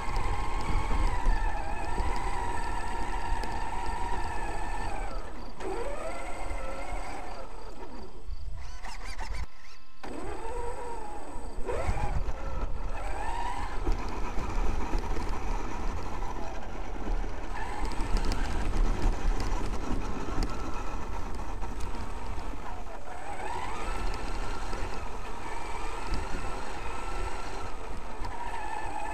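Traxxas X-Maxx electric monster truck's brushless motor and gears whining, the pitch rising and falling with the throttle and dropping away and climbing back several times around the middle, over a steady low rumble.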